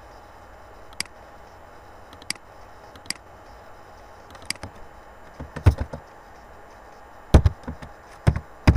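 A few single mouse clicks spaced a second or so apart, then from about five seconds in a run of computer keyboard keystrokes typing an IP address, in quick clusters.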